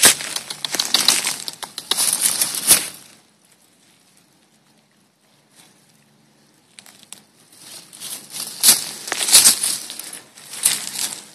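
Dry leaves and twigs crackling and rustling in two spells, the first about three seconds long, then a few seconds of quiet before it starts up again.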